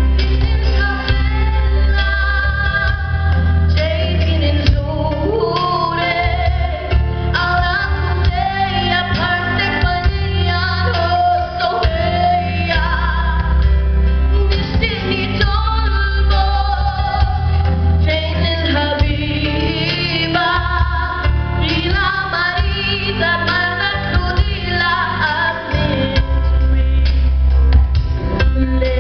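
A woman singing a song into a handheld microphone over instrumental accompaniment with a heavy bass, amplified through the stage sound system.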